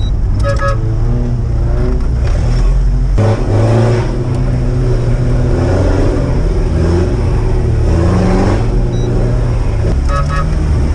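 Off-road Toyota 4x4's engine running and revving as it climbs a rough dirt track, heard from inside the cabin. A few short beeps sound near the end.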